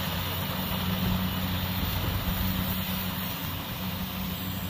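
Rice combine harvester running steadily as it cuts ripe rice, a constant low engine hum.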